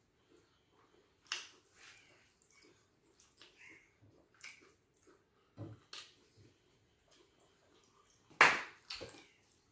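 A person eating: scattered short clicks of chewing and handling food, with one sharp knock, the loudest sound, about eight and a half seconds in.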